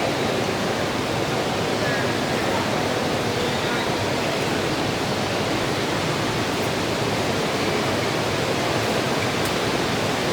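Steady hiss of heavy rain falling, with no let-up.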